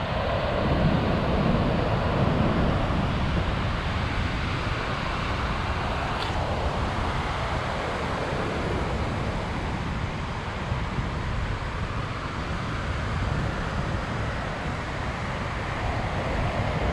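Steady noise of wind on the microphone and surf breaking, with a Toyota LandCruiser 79 Series' V8 turbo-diesel engine coming closer over soft sand, growing slightly louder near the end.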